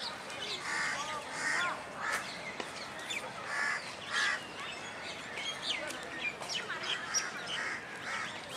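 Birds calling: a crow cawing again and again, mixed with shorter chirps and whistles of other birds.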